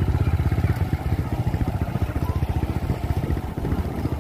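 Loaded freight train passing close by, its wagons giving a steady low rumble with a fast, even clatter.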